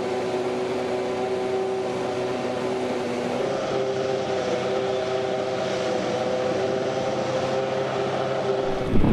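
An engine running steadily at a constant speed: a level hum that shifts slightly in pitch about three and a half seconds in, broken by a sudden louder burst right at the end.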